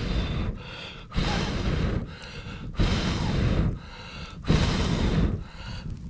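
A person blowing hard through a metal blow pipe into a campfire's embers to rekindle them: a run of long rushing puffs, about one every one and a half seconds, with a quick breath drawn in between each.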